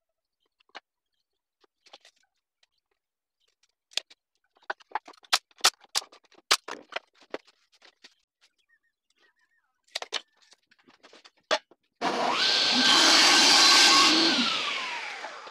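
Light scattered taps and knocks of small wooden pieces being handled and set down on a workbench. Then a table saw suddenly runs loud for about two seconds, and near the end its pitch falls as it winds down.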